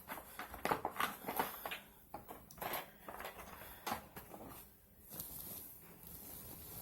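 Handling noise: irregular small clicks, taps and rustles of objects being moved about, thinning out after about four seconds into a faint hiss.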